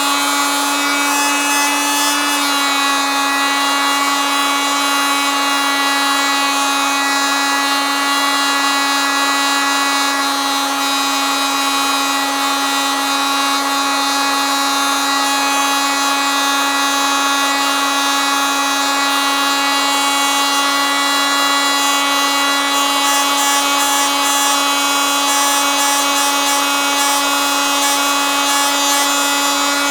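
Oscillating multitool running steadily, a constant high buzzing whine with a slight shift in pitch about two seconds in.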